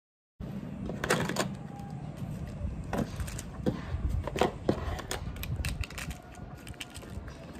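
Pens and highlighters being handled and set down on a desk: a scatter of small clicks and knocks over a low room hum, starting after a brief silence.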